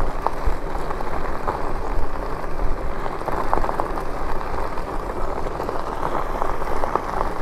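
Steady rushing wind on the microphone over the rumble of an e-bike's tyres rolling on the road, with a few faint clicks. The bike is being pedalled rather than run on the throttle.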